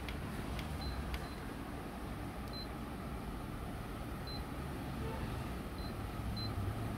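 Control-panel key beeps from a Canon imageRUNNER Advance 6255 copier's touchscreen: about six short, high beeps at one pitch, each as a button is pressed, with a few faint clicks, over a steady low hum.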